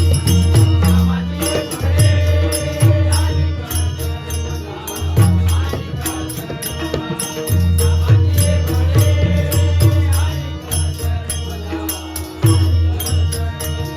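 Marathi devotional bhajan music: deep drum strokes from a pakhawaj, small hand cymbals (taal) jingling in a fast, even rhythm, and steady harmonium tones under chanted voices.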